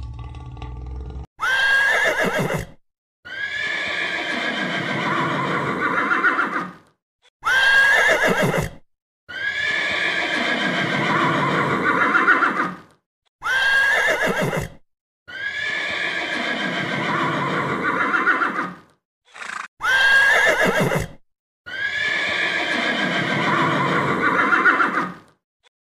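Horses whinnying: four neighs at even spacing, about one every six seconds, each a short high call followed by a longer, wavering whinny. A low rumble fades out about a second in.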